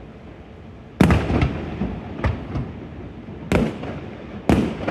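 Aerial fireworks shells bursting: a loud boom about a second in, a few smaller pops after it, and two more booms near the end, each trailing off in an echo.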